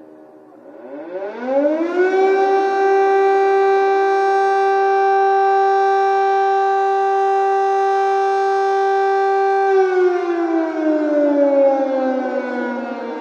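Air raid siren sounding an alert: it rises in pitch over the first two seconds, holds one steady loud wail for about eight seconds, then slides slowly down in pitch near the end.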